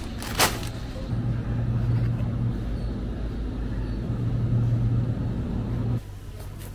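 Steady low hum of a supermarket refrigerated display case, with one sharp click about half a second in. The hum drops away abruptly about a second before the end.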